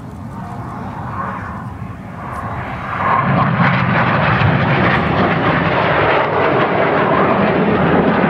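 Jet engine noise from Red Arrows BAE Hawk jets, a broad roar that builds for about three seconds, then turns loud and steady.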